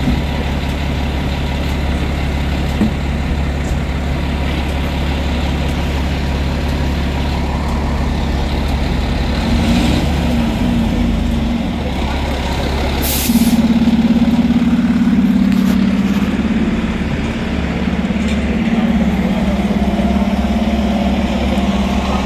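Diesel engines of a fire engine pumper and a ladder truck running, first idling steadily. About halfway through, a short sharp hiss of air brakes releasing, and the engine note then rises and stays louder as the rigs pull away and pass.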